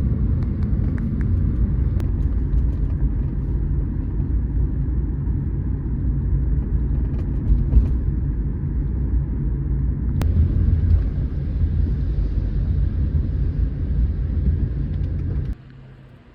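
A steady low rumble of a moving vehicle that cuts off abruptly near the end.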